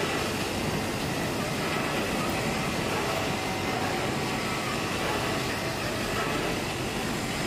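Automatic CNC fabric cutting machine running while it cuts fabric: a steady mechanical whir with a few faint steady hums.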